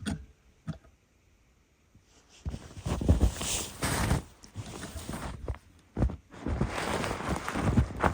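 Footsteps in fresh snow, irregular, starting up again after a quiet second or so near the start.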